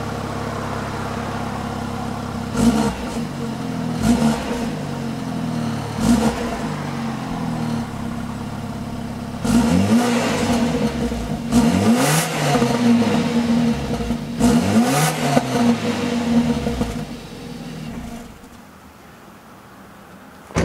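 BMW 428i's N20 2.0-litre turbocharged four-cylinder through its stock exhaust, close to the left tailpipe with the exhaust in comfort mode: idling, then three short throttle blips and a run of longer revs, before the engine note drops away near the end. A stock exhaust sound the owner calls pretty weak.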